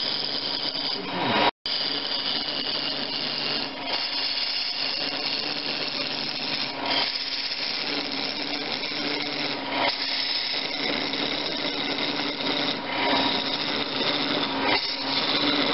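Wood lathe spinning a block while a narrow straight-edged parting tool is pushed into a groove to part off a lid: a steady scraping hiss of the tool cutting the wood over the lathe's running hum. The sound drops out for an instant about one and a half seconds in.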